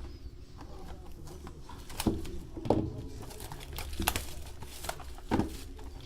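Trading cards and pack wrappers being handled on a table: a few sharp taps as cards are set down, with light crinkling in between.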